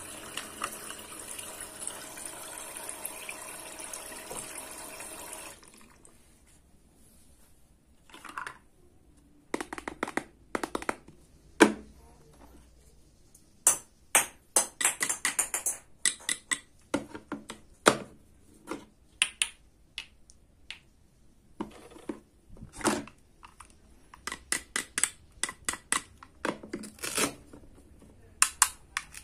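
Toy kitchen sink faucet running a thin stream of water for about five seconds, then stopping. Then irregular clicks and taps of hard plastic play food being handled, set down and cut apart with a toy knife.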